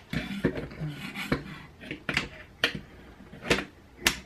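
The steel trigger group of a Remington 11-87 shotgun clicking and clattering against the receiver as it is worked back into place by hand: a string of sharp metallic clicks and light knocks at irregular intervals.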